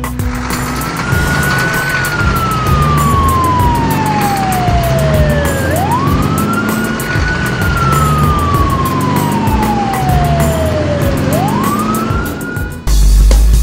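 Wailing siren sound effect: each wail rises quickly, then falls slowly over about four seconds, and it starts three times. A steady music beat runs underneath, and near the end the siren cuts off into louder music.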